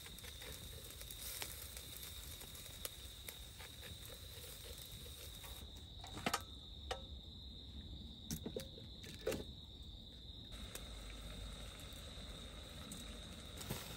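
A steady high-pitched insect call runs throughout, with scattered light clicks and a few louder knocks between about six and nine and a half seconds in.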